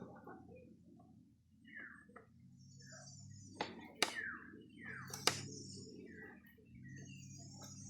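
Faint bird calls, short chirps falling in pitch that repeat every second or so, with an insect hiss coming and going. Three sharp clicks or knocks come in the middle.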